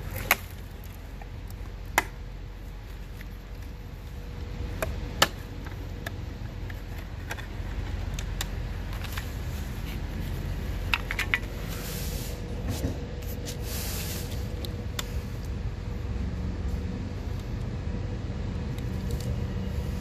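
Scattered sharp clicks and light knocks from the metal and plastic armrest hinge mechanism of a Mercedes W221 center console being handled and worked loose, with a busier run of clicks and rustles about two-thirds of the way through. A steady low background rumble runs underneath.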